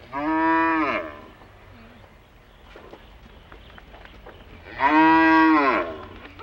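Cattle mooing: two long calls about four seconds apart, each rising and then falling in pitch.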